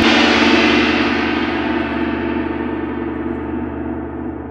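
A deep, gong-like struck hit of an intro sound effect ringing out, its many tones fading slowly and the bright top end dying away first.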